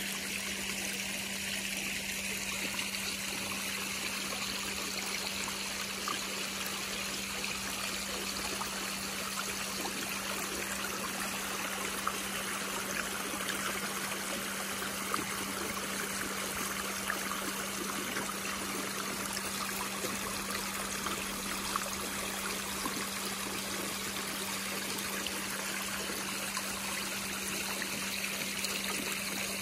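Small stone waterfall steadily splashing and trickling into a koi pond, under a steady low hum.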